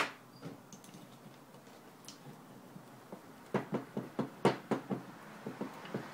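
Small clicks and taps of a screw and hand screwdriver being handled and set into a 3D-printed plastic part: one sharp click at the start, then a quick run of clicks about three and a half seconds in.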